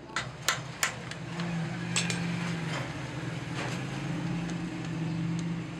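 Sharp metal taps and clinks on hydraulic jack parts held in a vise, three close together near the start and a few lighter ones later. An engine hum comes up about a second in and runs on steadily underneath.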